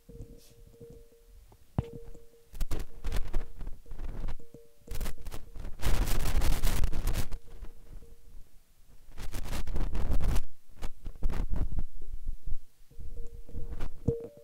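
Microphone handling noise: knocks, bumps and rubbing as a corded microphone is picked up, moved and passed around, with two longer stretches of scraping and rustling against the mic. A faint steady hum runs underneath.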